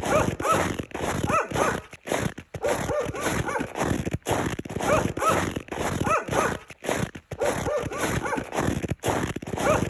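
Footsteps crunching through snow at a steady walking pace, each step a crunch with a short squeak as the snow packs underfoot.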